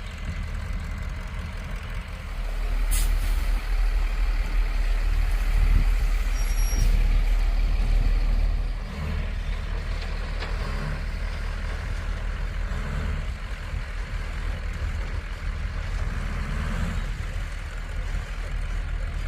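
Diesel engine of a tree-service truck delivering wood chips, running and growing louder for several seconds before settling back to a steady rumble. There is a short air-brake hiss about three seconds in.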